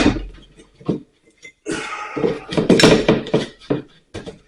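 Old electrical box being worked loose from a wall: a sharp click at the start, another about a second in, then about two seconds of clattering and scraping.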